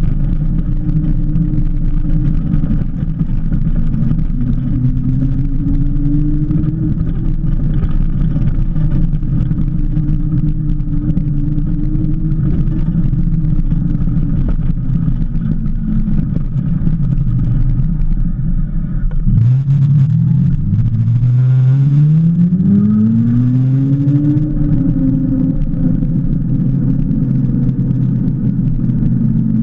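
Cromotor direct-drive hub motor on an electric motorbike whining while riding at speed, over a steady low rumble of wind and tyres. About two-thirds of the way in, the rumble cuts off suddenly and the motor whine climbs in pitch over a few seconds as the bike accelerates, then levels off.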